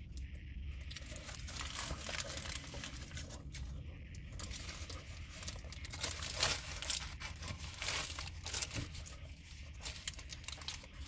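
Crackling and crinkling from eating a fried chicken sandwich in a paper wrapper: close-up chewing and the wrapper rustling in the hands, as irregular crackles over a low steady rumble.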